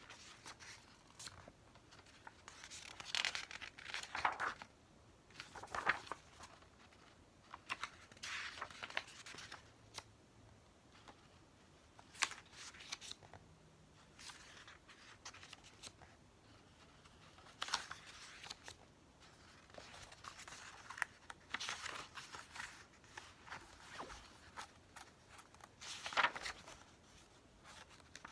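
Pages of an album photo book being turned by hand, one after another: a short paper swish with each turn every few seconds, with faint handling rustle in between.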